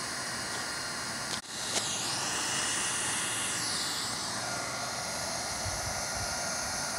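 Roofing heat gun blowing hot air in a steady hiss as it heats the edge of a cap-sheet patch to seal it to the roof. The hiss shifts slowly up and down in pitch, with a brief break about a second and a half in.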